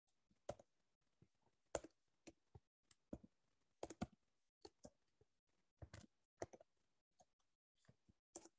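Faint, irregular keystrokes on a computer keyboard, about two or three clicks a second, some coming in quick pairs.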